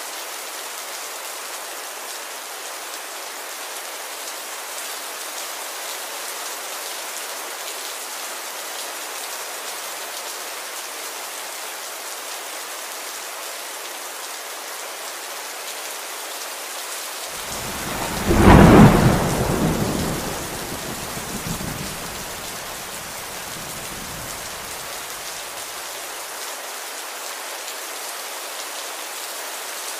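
Steady rain, with a single thunderclap a little past halfway whose rumble dies away over several seconds.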